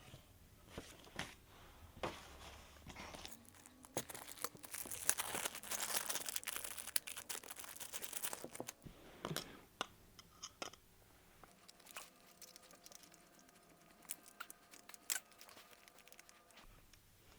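Packaging being handled and unwrapped: crinkling, tearing and crunching, densest for a few seconds in the middle, with scattered clicks and knocks before and after.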